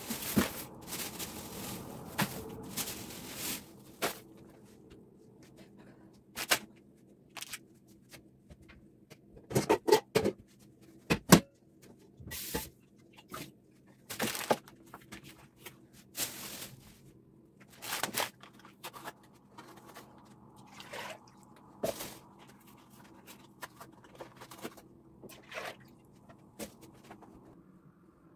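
Plastic grocery bags crinkling and rustling as packages are set down on a table, with a string of short knocks and thuds, dense for the first few seconds and then scattered, over a faint steady hum.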